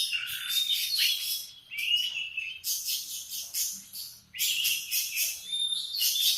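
Domestic canary singing: long phrases of rapid trills and rolls mixed with short whistled notes, broken by brief pauses about two and a half and four seconds in.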